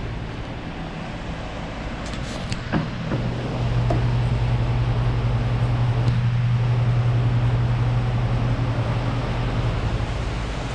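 A steady low machine hum that grows louder about three and a half seconds in and eases off near the end, over a background hiss, with a few faint clicks shortly before it swells.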